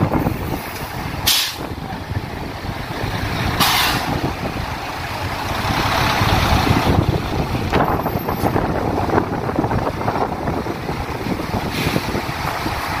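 Diesel tanker trucks idling with a steady rumble. Short hisses of air-brake air being released come about a second in and again some two seconds later, with a fainter one near the end.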